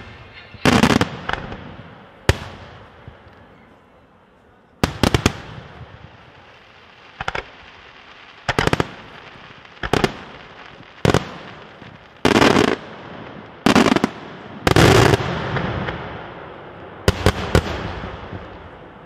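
Daylight fireworks display: a string of aerial shell bursts, a dozen or so loud bangs at uneven intervals, some coming as quick double or triple cracks, each trailing off in a short echo.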